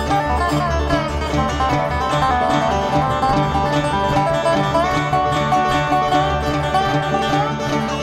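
Live band music: plucked string instruments over a pulsing bass line, with sustained melody notes that bend and waver.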